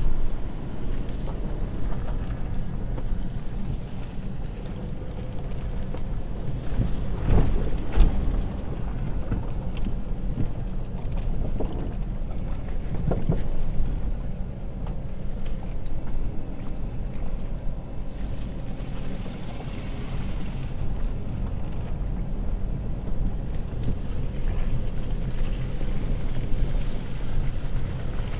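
2011 Jeep Patriot driving over rough off-road ground: a steady low engine and road rumble with wind buffeting the microphone, and a few knocks and jolts from the body about a quarter of the way in and again near the middle.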